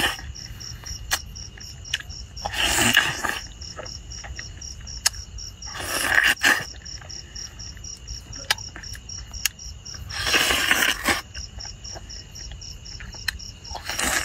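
Crickets chirping steadily in a fast pulsing rhythm, about five pulses a second. Over them come three loud wet slurping, munching bursts of a person biting into a juicy red-fleshed dragon fruit, with a few sharp clicks between them.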